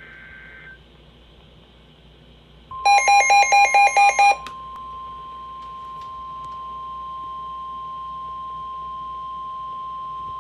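Emergency Alert System tones for a National Weather Service severe thunderstorm warning. A short buzzy data burst ends, and after a pause of about two seconds a loud rapid beeping runs for about a second and a half, about four beeps a second. Under and after it the steady 1050 Hz Weather Radio warning tone starts and holds.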